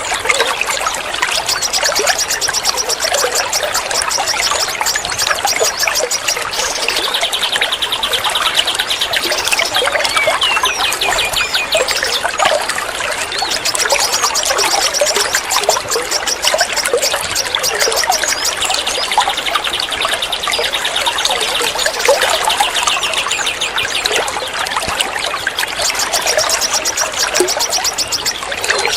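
Water trickling steadily, as in a small stream or fountain, with fast high trills repeating in long phrases over it and a few short bird chirps.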